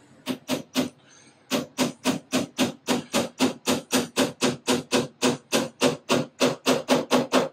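A hammer driving small nails into the thin fibreboard back panel of a flat-pack shoe cabinet. Three strikes, a short pause about a second in, then a fast, even run of about five strikes a second.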